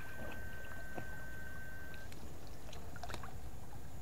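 Shallow water sloshing as an electrofishing pole is worked through a weedy ditch, under a steady low rumble. A thin, steady high whine cuts off about two seconds in, and a few faint ticks and splashes are scattered through.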